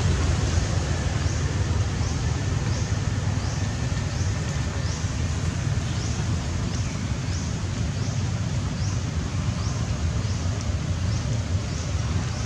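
Steady low outdoor rumble with no clear source, like wind or distant traffic, and from about a second in a short, high, rising chirp repeating about twice a second.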